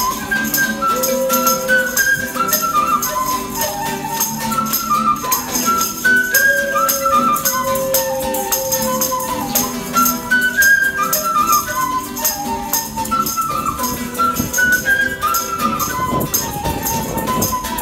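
Wooden flute playing a stepping melody over a strummed nylon-string acoustic guitar, with small hand shakers rattling along in rhythm.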